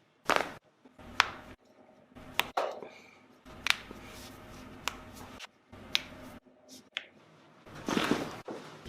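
Joints cracking and popping during a chiropractic adjustment: about eight short, sharp cracks roughly a second apart, with a longer rustling noise near the end.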